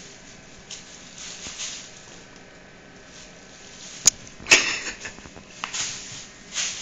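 Rustling and crinkling of a plastic bag as a kitten plays in it, coming in soft swells, with two sharp knocks about four seconds in followed by a louder rustle.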